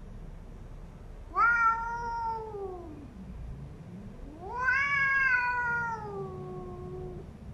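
A domestic cat giving two long, drawn-out yowls, the second longer than the first, rising and then sliding down in pitch: a warning call at another cat crowding its bed.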